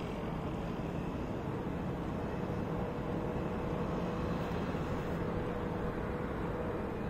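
Steady rooftop ambience: wind rumbling on the microphone over the distant hum of town traffic, with a faint steady tone running through it.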